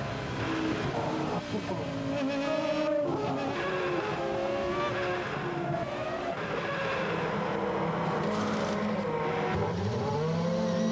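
Racing car engines revving, several pitches gliding up and down at once, with one rising sharply near the end.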